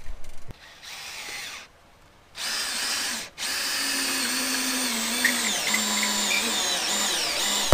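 Cordless drill driving a lag bolt through the attic ladder's metal frame into the wood framing: a short run, then a longer run of about four seconds, its motor pitch dropping a few times as it loads up.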